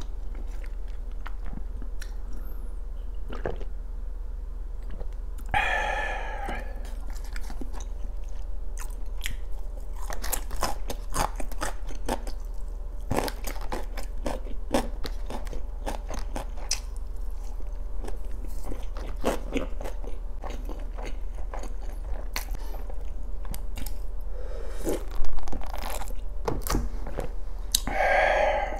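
Close-miked chewing of gimbap (seaweed-wrapped rice roll): soft wet mouth clicks and smacks throughout. Twice there is a longer, louder mouth sound, and near the end a sharp knock.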